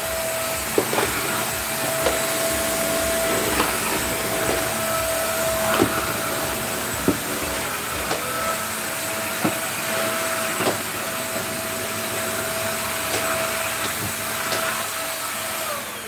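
Small corded Cosy 2-in-1 stick vacuum cleaner running steadily, a hiss with a steady whine, with a few light knocks. It stops near the end.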